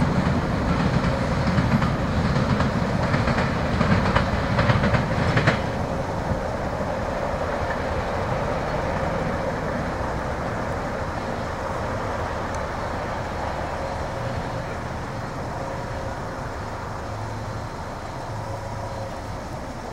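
Norfolk Southern manifest freight train's tank cars rolling away on the rails. Their wheels clack loudly for the first five seconds or so, then the rumble fades steadily as the train moves off.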